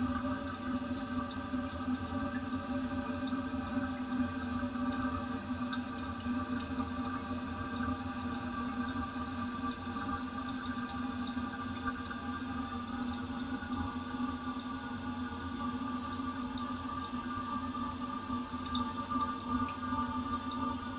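Toilet, recorded very close, with water running steadily and a steady humming tone over it: the cistern refilling after the flush.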